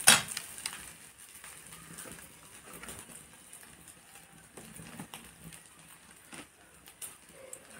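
Wood fire burning in an earthen chulha, crackling with scattered small pops and snaps. A single sharp knock comes right at the start.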